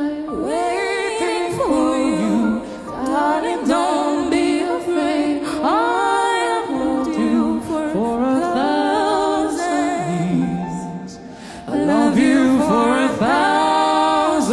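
A woman singing wordless vocal runs, her voice sliding up and down in pitch with vibrato, with a short softer dip near the end before it swells again.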